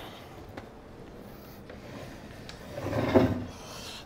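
A wooden Adirondack chair being handled: a few faint knocks, then a louder scrape and creak of wood about three seconds in as the chair is tipped upright.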